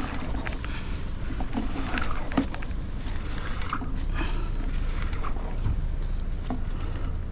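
Wind rumbling on the microphone, with scattered light knocks and scuffs of movement and handling throughout.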